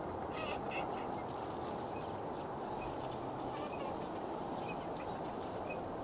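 Eurasian coots giving short, sharp calls: a quick cluster of notes about half a second in, then single calls every second or so, over steady background noise.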